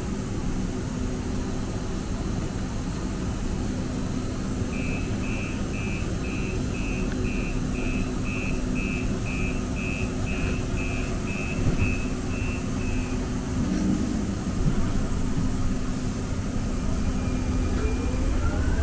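Door warning beeps of a Muni Siemens LRV4 light rail car: short high beeps, about two a second, for some eight seconds over the car's steady hum. Near the end the electric traction motors start a rising whine as the car pulls away.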